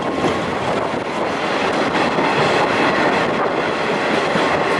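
A moving train's wheels running on the rails, heard from the open-air trolley car of the Shimanto Torokko, with wind rushing past the microphone.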